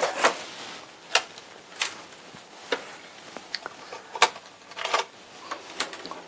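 Handling noise as packing material is cleared from a desktop 3D printer: about a dozen irregular sharp clicks and knocks with short rustles in between.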